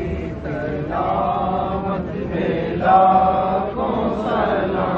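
Crowd of men chanting devotional praise together, many voices on long held notes, growing louder about three seconds in.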